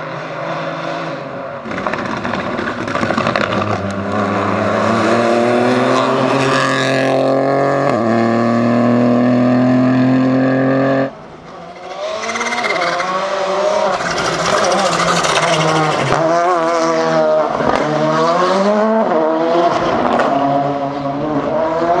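A rally car's engine at full throttle, its pitch climbing steadily in one long pull until the sound breaks off abruptly about eleven seconds in. Then a Volkswagen Polo GTI R5's turbocharged four-cylinder engine revs up and down again and again through quick gear changes and lifts.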